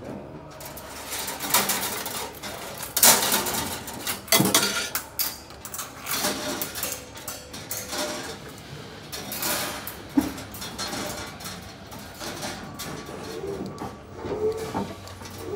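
Irregular metallic clinks, knocks and rattles of steel ceiling hanger wire being handled and fastened overhead, busiest in the first few seconds.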